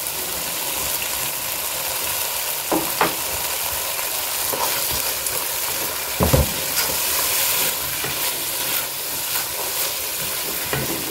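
Vegetable masala sizzling in a nonstick pot while a wooden spatula stirs and scrapes through it, with a few knocks of the spatula against the pot. The loudest knock comes a little past the middle.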